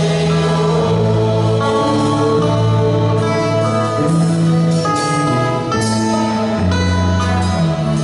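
Live gospel worship band: singers over an acoustic guitar, keyboard and drums, with a steady moving bass line.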